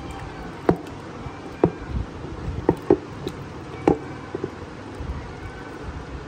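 A handful of sharp knocks and taps, spaced irregularly through the first four seconds, from a whole chicken being handled and rubbed with masala marinade by hand in a large vessel.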